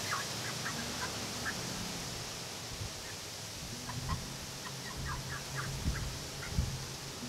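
Backyard hens clucking softly in short bursts: a cluster near the start and more from about four seconds in. A steady hiss runs behind, with a few dull thumps in the second half.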